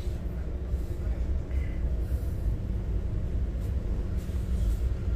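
Steady low rumble and hum of a moving passenger vehicle heard from inside the cabin.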